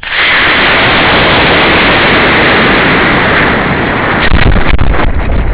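Model rocket motor igniting and burning, a sudden loud steady rushing hiss picked up by a camera mounted on the rocket. After about four seconds it gives way to gusty wind buffeting the camera as the rocket climbs.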